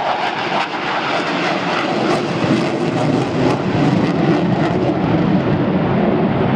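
Engine noise of a fixed-wing aircraft flying at an airshow, a steady rush that grows a little louder and lower about two and a half seconds in.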